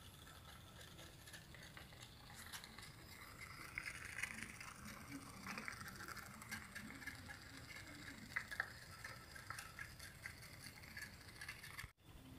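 Homemade pop-pop (otok-otok) boat made from drink cans, its little steam engine heated by a cooking-oil wick flame, running on the water with a faint, rapid rattling putter.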